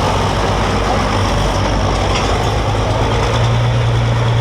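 Farm tractor's diesel engine running steadily, with a low hum that grows stronger about three seconds in.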